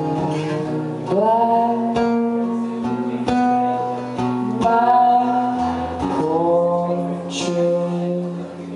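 Acoustic guitar strummed about once a second under a man singing long, held notes.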